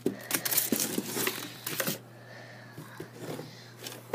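Crinkling and rustling of packaging being handled: the plastic-bagged instruction sheet and the cardboard box. The rustling is busiest in the first two seconds, then dies down to a few light ticks.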